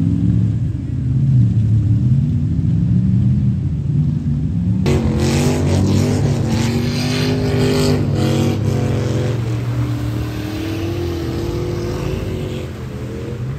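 Lifted Jeep and truck engines revving hard through a mud pit, their pitch rising and falling. From about five seconds in, mud and water splash loudly over the engine noise.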